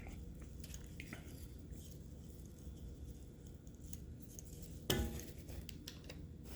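Faint handling of the Roomba's plastic brush parts while hair is pulled off: small scattered clicks and taps, with one sharper knock about five seconds in.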